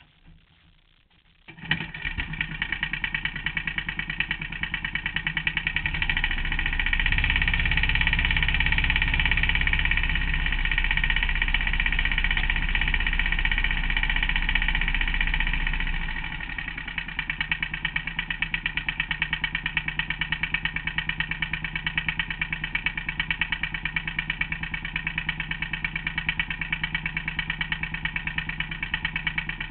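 An engine comes in abruptly just under two seconds in and runs steadily. It is louder and busier from about six to sixteen seconds, then drops back to a steady idle with an even, fast pulse.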